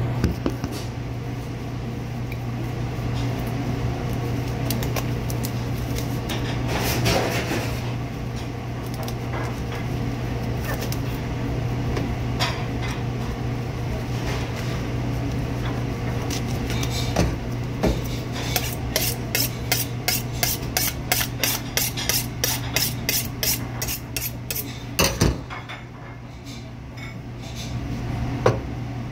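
A knife being sharpened: a run of about twenty quick, even scraping strokes, about three a second, over a steady low hum, ending in a single knock. Scattered handling knocks come before the strokes.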